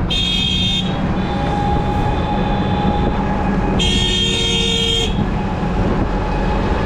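Vehicle horns honking in heavy street traffic: a short blast, then a second blast just over a second long a few seconds later, over a steady engine and traffic rumble.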